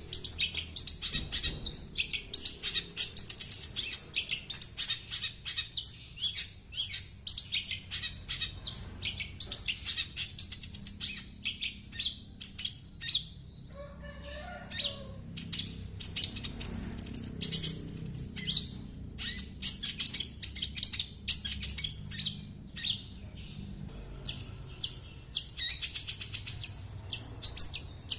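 Long-tailed shrike (cendet) singing a fast, unbroken string of high chirps and trills, mimicking the calls of small birds. About halfway through, the high chirps give way for a couple of seconds to a lower warbling phrase before the rapid chirping resumes.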